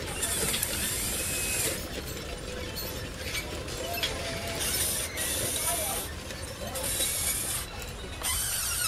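Radio-controlled model excavator working, its motors and gears running in a ratcheting whir, with a high hiss that starts and stops several times as the machine moves.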